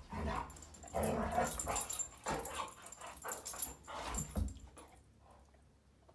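Two dogs, a Dalmatian and a curly-coated dog, play-fighting: short growly play vocalizations and scuffling in irregular bursts that fade toward the end. This is normal dog play, not aggression.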